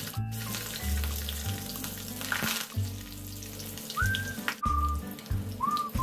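Hot oil sizzling in a steel kadai as green chillies and curry leaves fry in a tempering, under background music with a steady low bass line.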